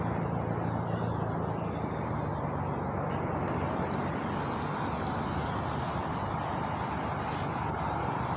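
Steady street traffic noise from vehicles running on the road, with a low engine hum that fades about halfway through.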